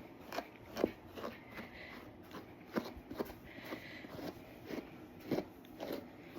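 Grooming brush raking through a dog's matted coat in short scratchy strokes, about one or two a second.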